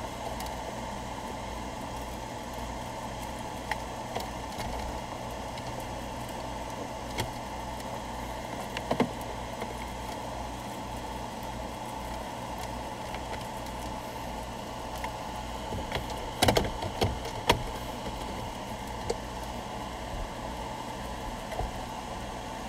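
Scattered plastic clicks and knocks from wiring-harness connectors being handled and plugged in and a car stereo head unit being fitted into the dash, with a cluster of louder clicks about sixteen seconds in. A steady background hum runs under them.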